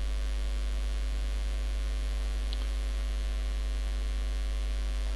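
Steady electrical mains hum picked up in the recording: a constant low drone with an even stack of buzzy overtones above it.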